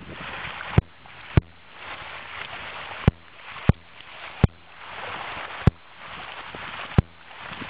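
Shallow water splashing and sloshing as salmon thrash up a gravel stream outlet, with seven sharp knocks at irregular intervals over the top.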